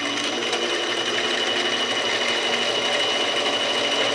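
Harbor Freight Central Machinery 7x10 mini lathe running, its motor and geared spindle giving a steady high-pitched whine with the chuck spinning freely.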